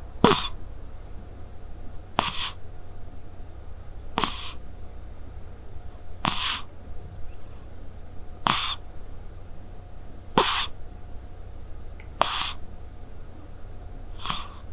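A Scottish Straight cat snoring in its sleep, one short breathy snore about every two seconds, eight in all.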